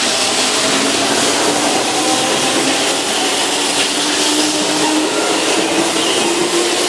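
Keihan 2600-series electric commuter train pulling away and picking up speed, its traction motors whining with a slowly rising pitch over a steady rush of wheel and running noise.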